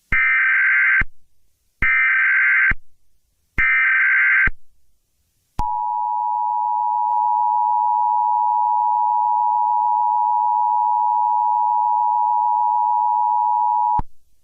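Emergency Alert System alert tones: three short bursts of the digital SAME data header, each about a second long, then the steady two-tone EAS attention signal held for about eight seconds before cutting off.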